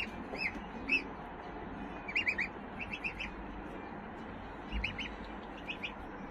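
Small birds chirping: short, high chirps, mostly in quick groups of two or three, repeated every second or so.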